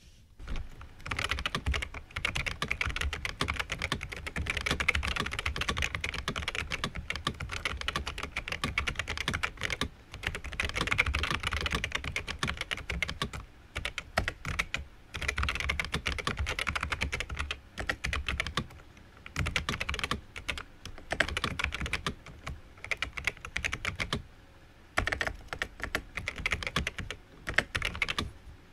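Fast two-handed typing on a 1989 Sejin Electron EAT-1010 keyboard with clicky Futaba MA switches and thick double-shot keycaps: a dense patter of sharp key clicks in runs, broken now and then by short pauses.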